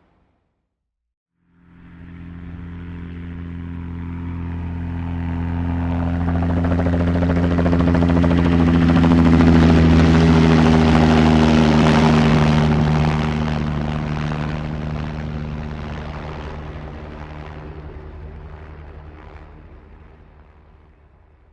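Helicopter flying past: the rotor and engine sound fades in after a short silence, swells to its loudest about halfway through, then fades away.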